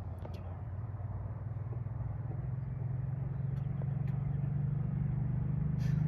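A motor vehicle's engine running with a steady low hum that grows louder, as if approaching.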